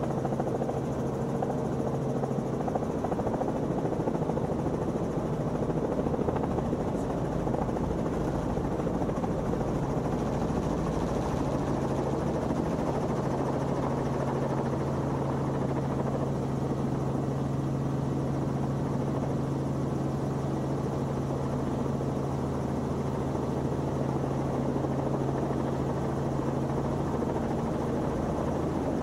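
Robinson R44 helicopter's rotor and six-cylinder Lycoming piston engine running steadily, heard inside the cabin, as the helicopter slows and descends to land on a helipad.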